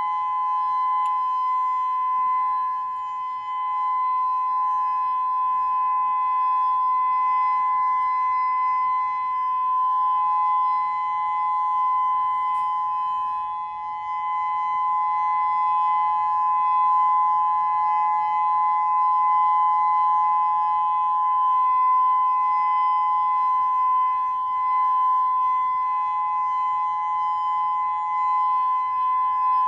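Whelen WPS-2000-16 omnidirectional electronic siren sounding its steady alert signal: a loud, continuous tone made of two close pitches that never rise or fall.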